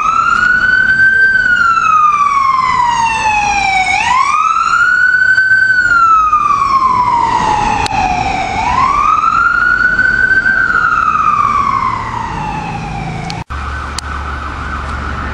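Emergency vehicle siren wailing: three cycles, each a quick rise in pitch followed by a long slow fall. After a brief dropout near the end, a steady tone with a low hum.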